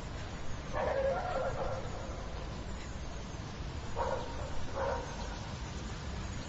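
City yard ambience: a steady low rumble, with an animal calling over it, once at length about a second in and then twice briefly about four and five seconds in.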